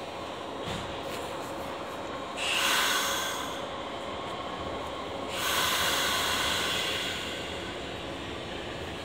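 Stopped Nishitetsu electric commuter train releasing compressed air: two loud hisses, the first about a second long, the second about two seconds long and fading, over the steady hum of the train at the platform.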